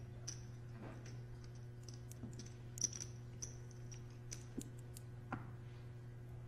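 Clay poker chips clicking as they are handled and stacked on the table, a scattering of sharp clicks with the loudest nearly three seconds in, over a steady low hum.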